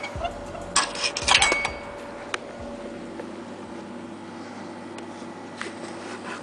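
Coffee vending machine humming steadily, with a cluster of clicks and knocks about a second in as the paper cup in its dispensing bay is handled, and a few single ticks after.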